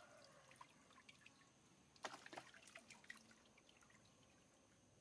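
Faint water dripping, with a brief clatter of clicks about two seconds in.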